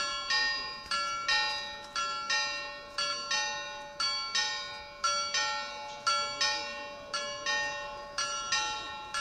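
Bells of the Männleinlaufen clock on Nuremberg's Frauenkirche chiming a tune: struck notes of several pitches, about two a second, each ringing on and fading, over one long steady ringing tone.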